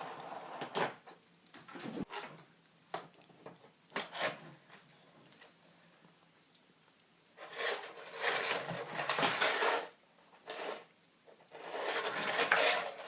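Vacuum cleaner parts and packaging being handled: a scatter of light clicks and knocks, then two longer bursts of rustling, the second near the end.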